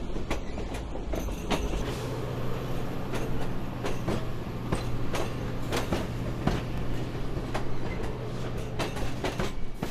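HO-scale model train running past, with a steady low hum and the wheels clicking over rail joints.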